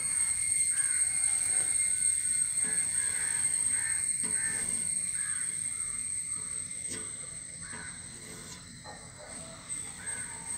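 Crows cawing intermittently in the background, with a few sharp taps among the calls.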